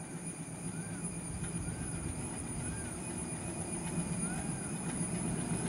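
Diesel locomotive of an approaching train, still out of sight, running with a low steady rumble that grows gradually louder.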